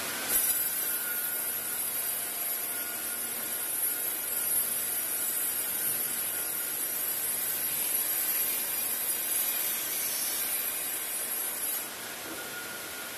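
Woodworking machinery of an automatic miter saw line running: a steady high-pitched whine over a loud hiss. It starts abruptly and cuts off abruptly near the end, leaving a quieter steady hiss.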